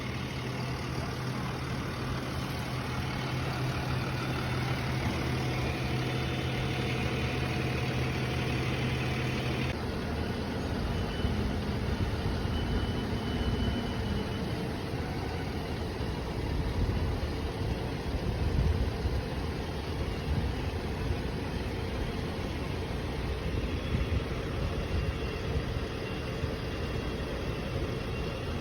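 Boom truck's engine idling steadily on a crane job. About ten seconds in, the steady hum gives way to a rougher, uneven rumble.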